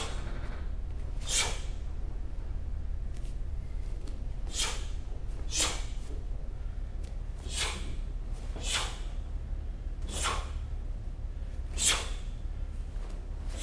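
About seven sharp snaps, a second or more apart and irregularly spaced, from the strikes and kicks of a taekwondo pattern being performed, the sound of the uniform cracking with each technique. A steady low hum runs underneath.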